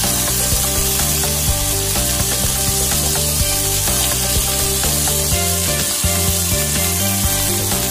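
Sliced tomatoes and onions sizzling steadily as they fry in a nonstick wok, turned with a spatula, with background music playing over it.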